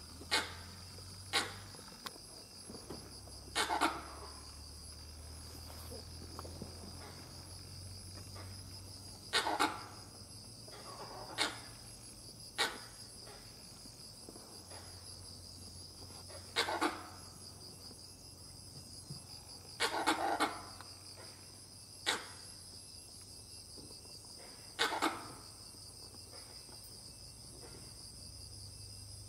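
Gray langur giving loud, short alarm barks, about a dozen at uneven intervals, some in quick pairs; the alarm was raised at a leopard stalking nearby. A steady high buzz of insects runs underneath.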